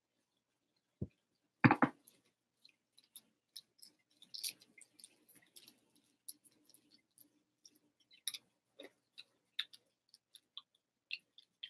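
A small candy wrapper crinkling and crackling in the hands as it is being unwrapped: many scattered sharp little crackles. About a second in there is a low thump, followed just after by a louder knock, the loudest sound here.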